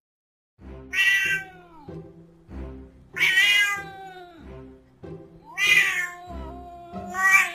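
A cat meowing four times, long calls about two seconds apart, each sliding down in pitch, over light background music.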